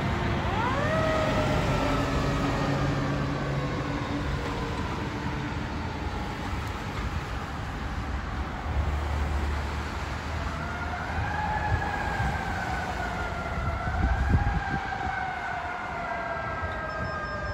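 Fire engine siren sounding as the truck drives away: its pitch rises quickly about half a second in, then falls slowly over several seconds, and wails up and down again from about ten seconds in, over the steady noise of passing traffic.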